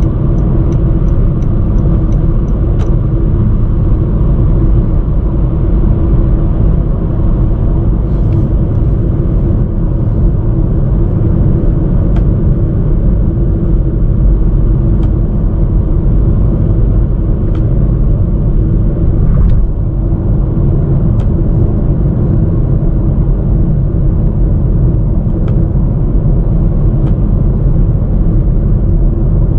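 Late-model previous-generation Honda Vezel driving on a highway: steady road and engine rumble with a constant low hum. A short run of light, evenly spaced ticks comes in the first few seconds, and a few faint clicks come later.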